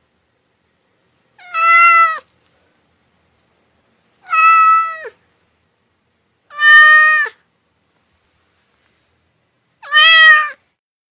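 Domestic cat meowing four times, each meow under a second long with a few seconds of silence between.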